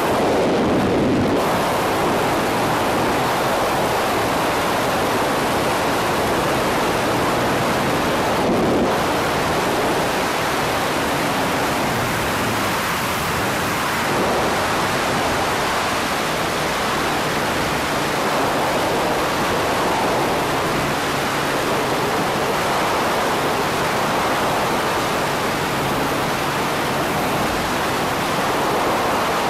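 Wind rushing over the microphone of a wingsuit flyer's camera in flight: a loud, steady, even rush of airflow.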